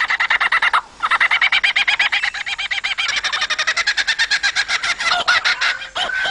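Laughing kookaburra calling back, a long, loud run of rapid repeated chattering notes answering a lyrebird's imitation of its call. The imitation is a short burst of the same rapid notes, heard first and breaking off just before a second in.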